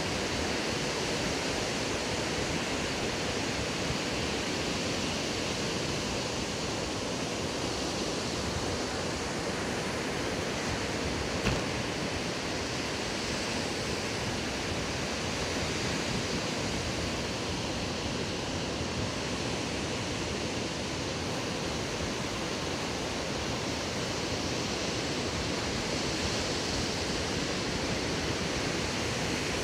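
Steady rushing noise of ocean surf breaking on a sandy beach, with one small click about a third of the way in.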